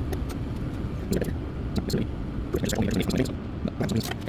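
Irregular light clicks, taps and scrapes of hand marking tools, such as a square, marking knife or pencil, being set down and drawn on a small piece of wood, over a steady low background rumble.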